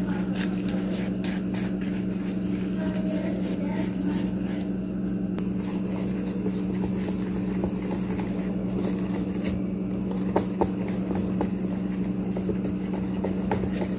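A steady machine hum, with light scattered clicks of a hand wire whisk against a plastic bowl as milk powder is beaten into water.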